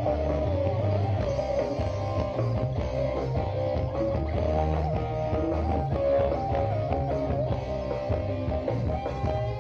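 Live instrumental music accompanying a jaran kepang dance: a melody line over a steady low bass, with no singing.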